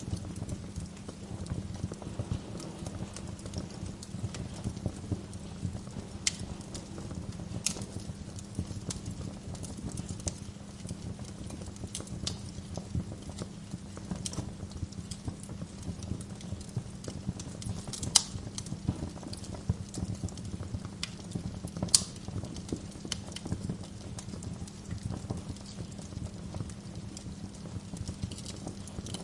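Wood fire burning in a fireplace: a steady low rumble of flames with frequent sharp crackles and pops from the logs, two louder pops about 18 and 22 seconds in.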